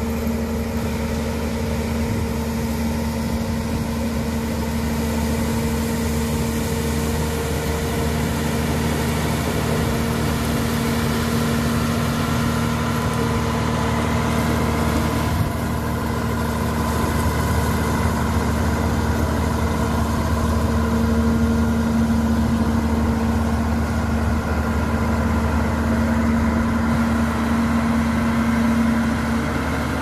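Caterpillar 140G motor grader's diesel engine running steadily while the grader pushes gravel with its blade, with an abrupt change about halfway through, after which it is a little louder.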